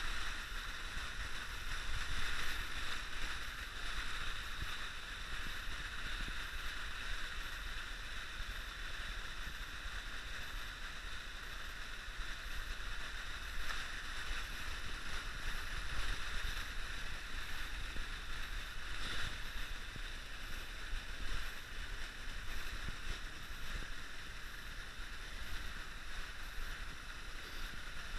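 Creek water flowing over shale: a steady rush of running water.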